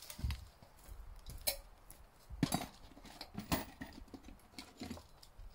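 Scattered knocks and clacks, about half a dozen at uneven intervals, from tools and lumber being handled while a wooden hunting stand is built.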